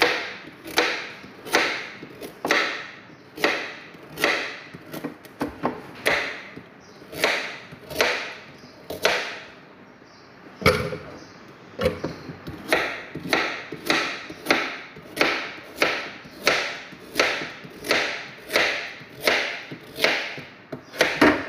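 Kitchen knife chopping carrots into small pieces, each cut a sharp knock on the board, about one a second.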